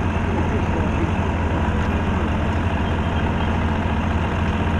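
Steady low rumble of idling heavy engines.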